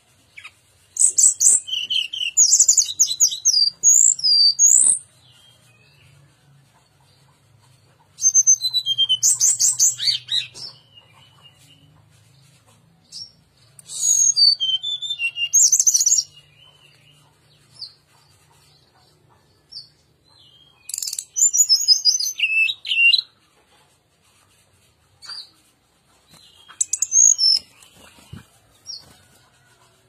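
Brown-chested jungle flycatcher (sikatan rimba dada coklat) singing in five separate bouts of rapid, high-pitched twittering phrases, each lasting two to four seconds, with pauses of a few seconds between them.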